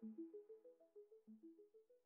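Background music: a quick melodic figure of short pitched notes, several a second, fading out.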